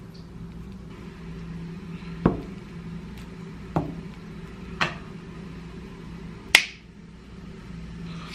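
Four sharp clicks and taps spread over a few seconds, the last the loudest, from kitchen scissors and plastic food containers being handled, over a steady low hum.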